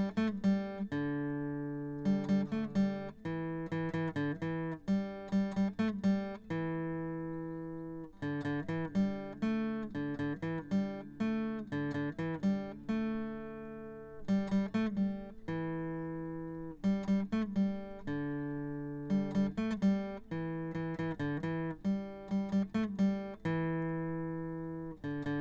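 Background music: acoustic guitar, plucked notes and strummed chords, each ringing out and fading.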